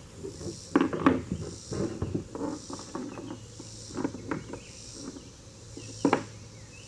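Irregular knocks and thumps of a small channel catfish flopping against a kayak as it is brought aboard, loudest about a second in and again near the end. Insects call in faint high pulses about once a second.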